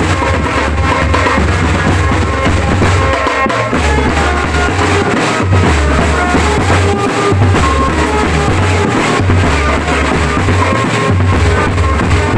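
Loud drum band music for a gedruk jathil dance performance: a drum kit beat with bass drum and snare over a deep bass line that shifts note every second or so, with sustained melodic notes above.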